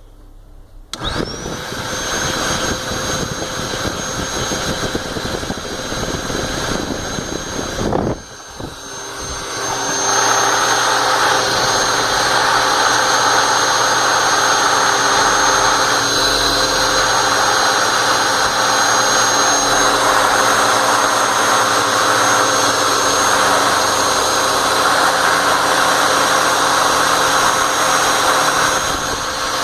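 Electric air-mattress inflator blowing air at a fidget spinner to spin it. Its motor whines up to speed about a second in, runs steadily, and winds down and stops about 8 seconds in. It then starts again and runs steadily and louder.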